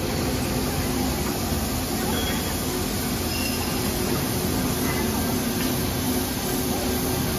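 Cylindrical grinding machine grinding the bearing seat of an electric-motor shaft under a coolant spray: a steady grinding and running noise with a low hum.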